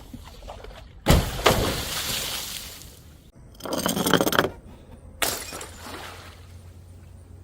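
Glass bottles shattering three times: a sharp crash about a second in that trails off, a burst with ringing, clinking shards around four seconds, and another crash just past five seconds that fades away.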